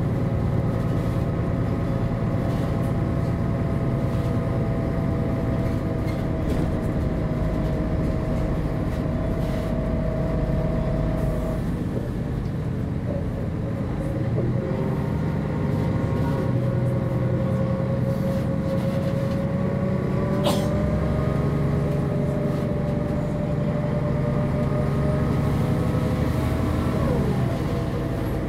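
Diesel engine of a MAN NG 262 articulated bus running, its pitch shifting down and up as the bus changes speed, with a sharp click about twenty seconds in.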